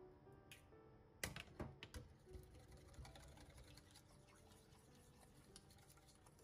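Small wire whisk beating an egg into batter in a stainless steel bowl: a few sharp knocks about a second in, then quick light clicking of the wires against the bowl.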